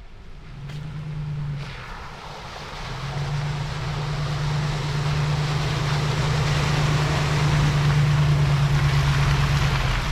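Off-road vehicle's engine running steadily as it drives through a water hole, with the rush and splash of water growing louder over the last several seconds.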